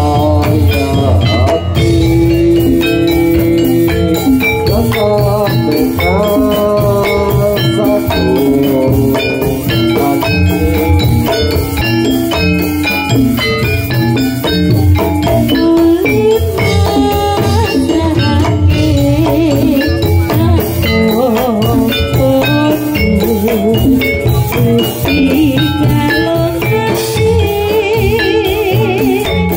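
Loud live Javanese gamelan-style music for a trance dance: drums and struck metal-keyed instruments play a dense, steady rhythm.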